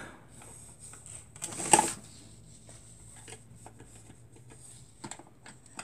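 Small clicks and rattles of hands working the shuttle into a small sewing machine's bobbin area, with one louder clatter about two seconds in and a few light clicks near the end.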